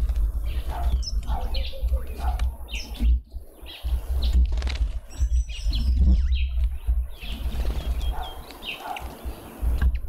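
Small feeder birds chirping and twittering in short scattered calls, with wing flutters as birds come and go, over a steady low rumble.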